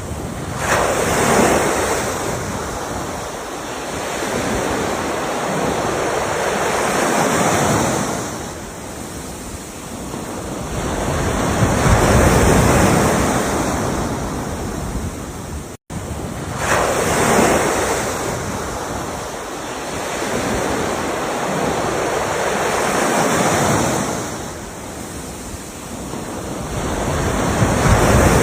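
Ocean waves breaking and washing in, a surge of surf about every five seconds rising and falling away. There is a momentary cut to silence about halfway through.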